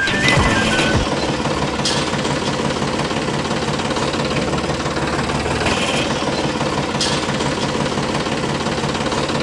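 Tractor engine running steadily with an even, unbroken chug.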